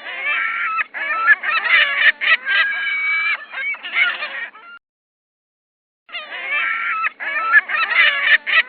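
Hornbill calling: a dense run of loud, pitched calls that lasts about four and a half seconds. After a gap of about a second and a half, the same call sequence starts again.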